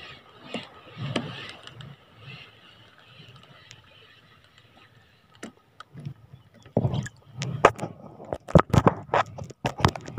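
Fishing reel (KastKing Royale Legend II) being wound to retrieve a small lure, a soft repeating winding noise over the sea's wash. About two-thirds of the way in, a quick run of loud sharp knocks and rustles takes over.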